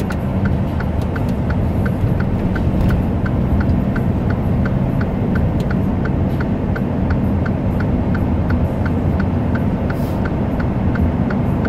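Steady engine and road rumble inside a semi truck's cab, with the hazard-light flasher ticking evenly about three times a second.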